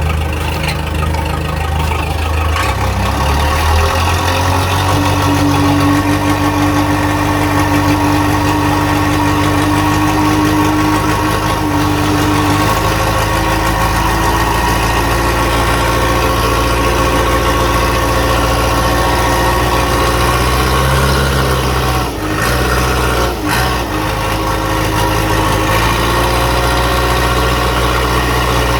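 Backhoe engine running steadily, its speed shifting up and down a few times, with two brief dips in the sound about three-quarters of the way through.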